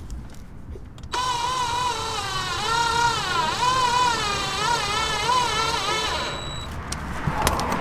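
Cordless drill driving a self-tapping screw into the underside of a plastic side skirt with no pilot hole drilled. The motor whine starts about a second in and wavers up and down in pitch as the screw bites, then stops about six seconds in.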